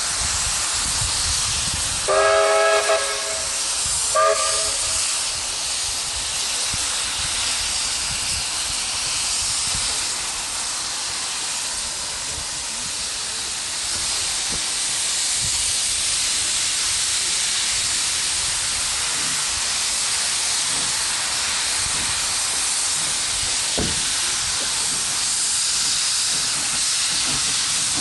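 Steady hiss of steam from BB18¼ class steam locomotives standing with steam up. About two seconds in, a steam whistle sounds a blast of about a second, followed by a short toot.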